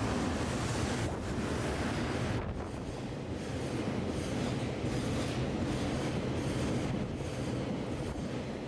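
Freight train passing at speed: a loud, steady rumble of wagons on the rails with repeated faint clatter from the wheels.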